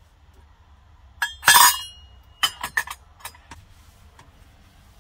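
Kitchen utensils clinking and clattering against each other and their holder: a loud clatter about a second and a half in with a brief metallic ring, then several lighter clinks over the next two seconds.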